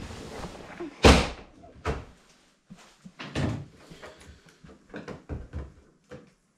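Plastic bug deflector being pried off a pickup's hood where it is held by very strong adhesive tape. There is a loud, sharp knock about a second in, a second one just under a second later, then fainter knocks and scraping.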